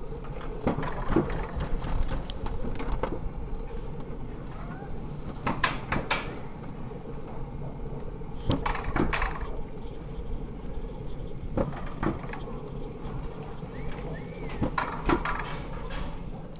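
Alpine coaster sled running fast along its steel tube rails: a steady rolling rumble with a faint hum underneath, broken by irregular sharp clacks and knocks from the track.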